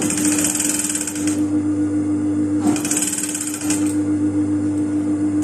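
JUKI industrial sewing machine stitching fabric in two short runs of about a second each, the second starting a little past halfway. A steady hum runs underneath between the runs.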